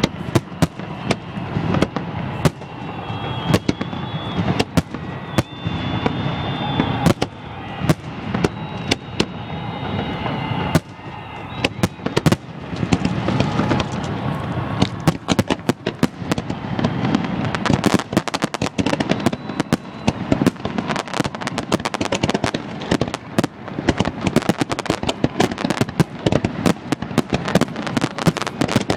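New Year's fireworks display: a steady run of sharp bangs and crackles, growing denser about halfway through into near-continuous crackling, with a few high whistling tones in the first third.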